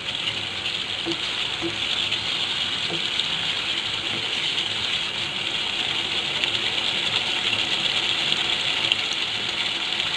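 Mutton korma gravy with fried onion paste sizzling steadily in oil in a non-stick pan, cooking down until the oil separates.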